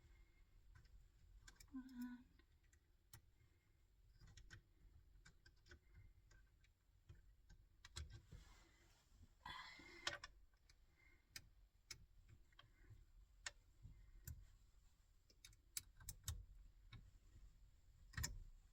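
Faint, irregular clicks and taps of a small hand wrench working the bolts of a car's steering-wheel hub, with a few sharper knocks.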